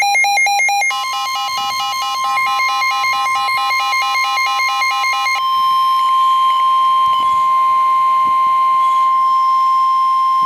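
NOAA Weather Radio 1050 Hz warning alarm tone, a single steady high tone that signals a warning broadcast is about to follow. For the first five seconds it is overlaid by rapid pulsing electronic alert beeps, about five a second, which then stop and leave the tone alone.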